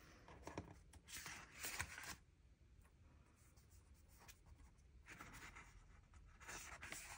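Faint rustling and rubbing of paper as sticker sheets are handled, in two stretches: one starting about a second in and lasting about a second, and another from about five seconds in.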